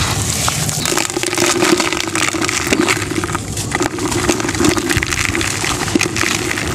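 Hands crushing and crumbling red sand and cement clumps in a bowl: dense, irregular gritty crunching and crackling as the lumps break and the dry powder sifts down.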